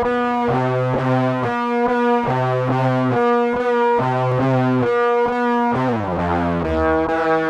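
Instrumental music: sustained, pitched notes in a repeating figure, sliding down to a lower register about six seconds in.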